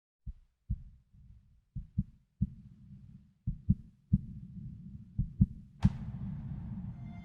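Muffled low drum thumps in an uneven, heartbeat-like pattern over a dull rumble, opening a music track. Near the end a sharp hit brings in a hissing wash as the music opens out.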